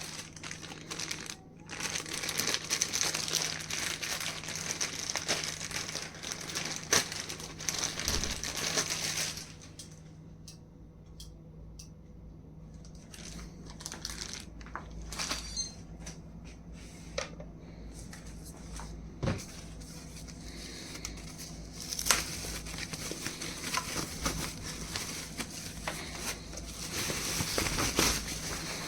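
Wrapping crinkling and rustling as a small speaker is unwrapped by hand: dense crinkling for several seconds early on and again near the end, with scattered handling clicks and knocks in between.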